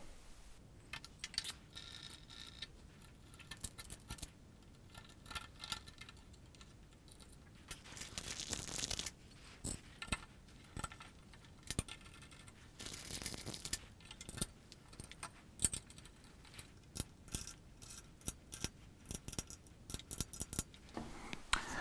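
Scattered light clicks and small metallic clinks as an aluminium channel arm is handled and fastened onto a 3D-printed adapter on a robot actuator's output shaft, with a couple of brief scrapes of parts sliding against each other.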